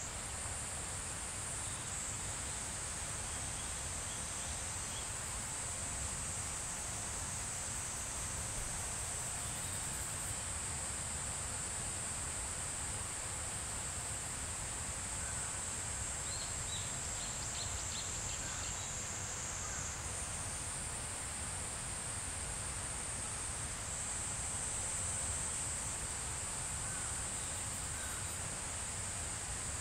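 Summer woodland ambience: a steady, high-pitched drone of insects singing, shifting a little in pitch and level a couple of times, over a low outdoor rumble, with a few faint brief chirps in the middle.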